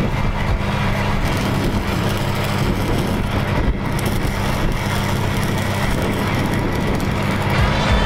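Engine-driven welding machine running steadily at a constant speed, with the crackling hiss of a stick-welding arc over it.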